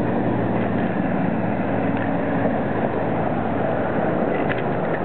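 Steady wind rush on the camera microphone of a bicycle being ridden along a paved path, with a faint low engine hum from passing road traffic in the first couple of seconds.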